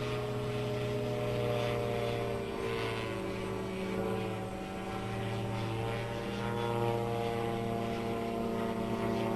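Titan Tornado light aircraft's propeller engine droning steadily in flight, its pitch slowly falling and rising as it manoeuvres.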